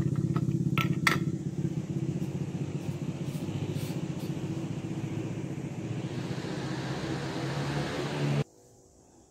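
A motor vehicle engine running steadily with a low, even pulsing, with two light clicks about a second in. It cuts off abruptly near the end, leaving near silence.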